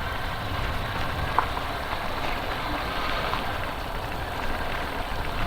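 Motorcycle running steadily on the road, heard as a continuous low rumble, with a small click about a second and a half in.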